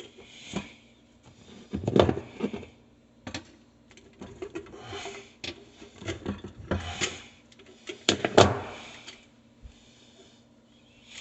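Irregular knocks, clicks and clatter of tools and parts being handled during garbage disposal installation work, with two louder knocks about two seconds in and near the end.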